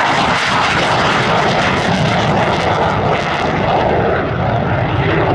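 USAF F-15C Eagle's twin jet engines running steadily as the fighter rolls out after landing, slowing with its speed brake raised. The highest hiss thins out about halfway through.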